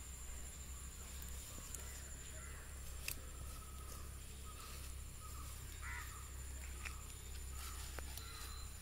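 Quiet rural outdoor ambience: a steady high-pitched insect drone over a low rumble, with a few faint, distant bird calls and a couple of faint sharp clicks.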